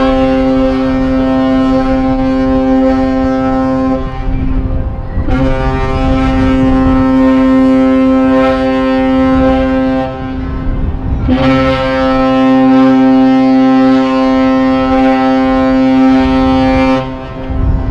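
Asuka II cruise ship's horn sounding three long, loud, steady blasts, each of about five or six seconds with short gaps between them. The first is already sounding at the start.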